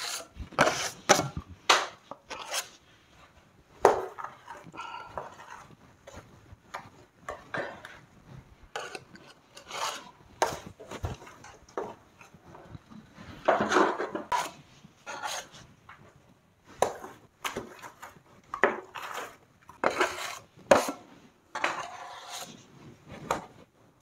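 Steel plastering trowel and spatula scraping against each other and across wet gypsum plaster as it is loaded and spread on a window reveal. The sound is a string of irregular short scrapes and metallic clicks.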